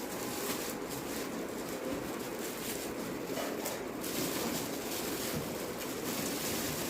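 Gree inverter air conditioner running: a steady rushing of air from its fan.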